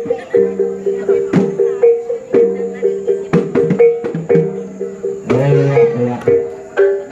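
Dance music on a plucked-string lute: a repeating two-note figure in a steady beat. A voice calls out briefly about five seconds in.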